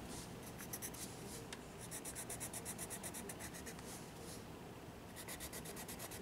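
Prismacolor Premier Colorless Blender pencil scratching faintly over colored-pencil wax on sketchbook paper, rubbed in quick strokes about five a second to blend out a patch of blue.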